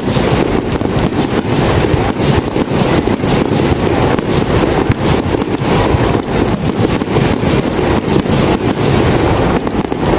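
Aerial fireworks display: many shells bursting in quick succession, a dense unbroken run of bangs and crackling.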